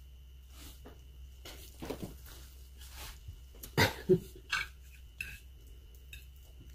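Eating at the table: scattered clinks and knocks of cutlery and dishes, with two louder short sounds a little past the middle.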